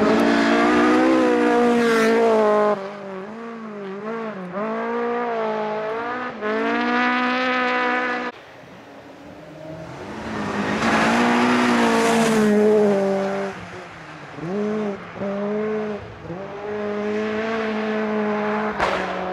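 Rally car engines at full throttle on a gravel stage, revving hard, the pitch dropping and climbing again over and over as the cars shift and lift. Loudest at the start and again from about eleven to thirteen seconds in.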